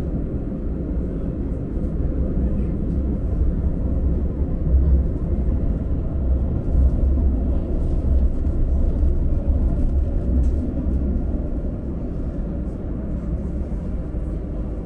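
Light-rail tram running, heard from inside the car: a steady low rumble that grows a little louder through the middle and eases off near the end.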